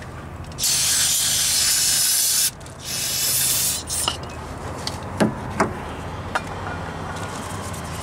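Aerosol brake cleaner sprayed onto a rusty brake caliper: a loud hiss lasting about two seconds, a short break, then a second spray of about a second. A few light knocks follow.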